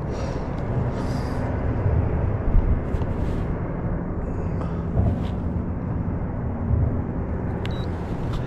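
Steady low rumble of outdoor background noise with no distinct event.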